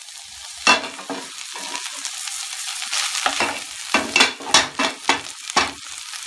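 Soya chunks, onion and capsicum sizzling in a nonstick pan while a wooden spatula stirs them. The spatula scrapes across the pan in a series of short strokes, most of them in the second half.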